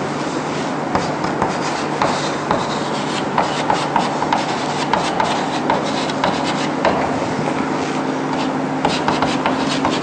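Chalk scratching and tapping on a chalkboard as words are written by hand, in quick uneven strokes.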